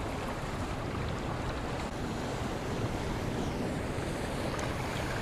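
Steady rush of turbulent water churning out below a dam's spillway gates, with wind buffeting the microphone.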